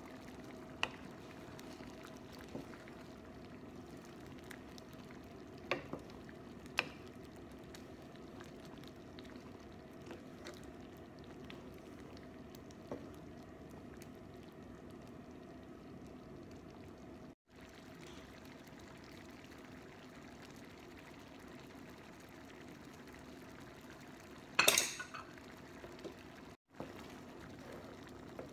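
Thick lentil soup bubbling steadily in a pan while a wooden spatula stirs it, with a few sharp taps against the pan and one louder clatter near the end.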